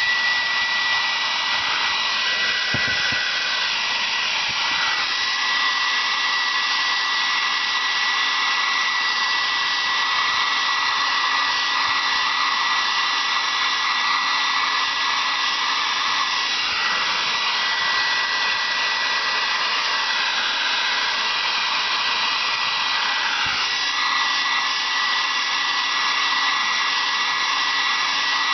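Hand-held hair dryer running steadily, a constant blowing hiss with a high steady whine. The airflow sound shifts briefly a few times.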